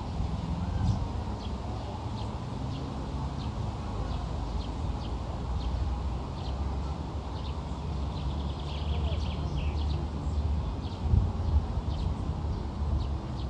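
Birds chirping in many short, high notes over a steady low rumble.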